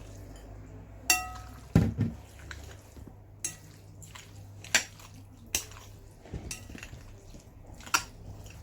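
A spoon clinking and knocking against a dish while salad is mixed or served: irregular sharp clinks, one ringing briefly about a second in, followed by a duller knock.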